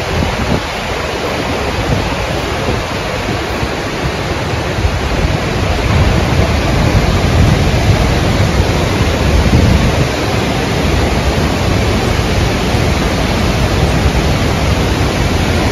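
A waterfall and its cascading creek rushing loudly and steadily, the rushing strongest in the low end.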